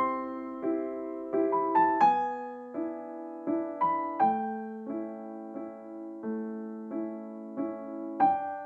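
Soft solo piano background music, single notes and chords struck at a gentle, even pace and left to ring.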